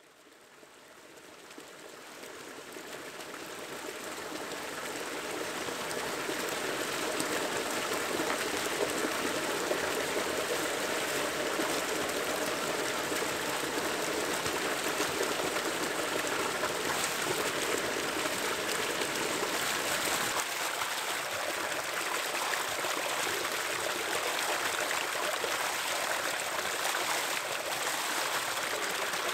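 Spring water pouring steadily from a spout into a shallow pool, a continuous splashing rush that fades in over the first several seconds and then holds level.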